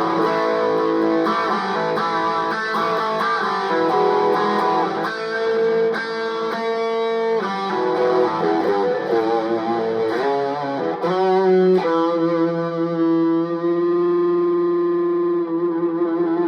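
Electric guitar played through two overdrive pedals stacked, a Joyo overdrive and a Behringer overdrive with its gain maxed: a run of distorted notes and chords, then a final chord left to ring for the last few seconds.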